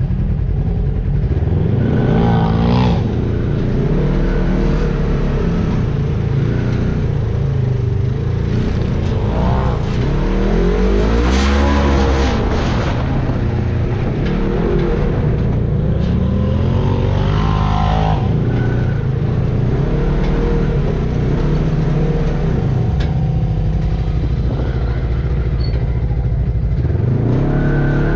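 Off-road vehicle engine revving up and dropping back again and again, with the throttle opened in surges every few seconds.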